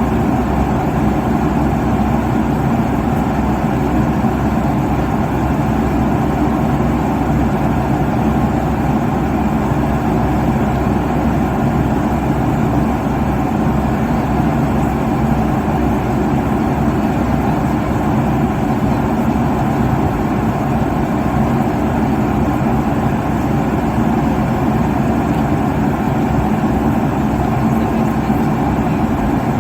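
Airplane cabin noise at cruising altitude: a steady, unbroken rushing drone of engines and airflow, strongest in the low range.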